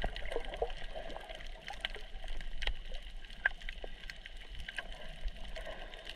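Underwater sound picked up by a camera held below the surface over a coral reef: a gurgling, bubbling water hiss with many scattered sharp clicks and crackles.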